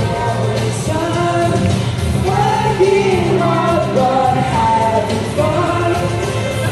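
A song with singing over a backing track that has a steady low bass line, played for a children's stage show.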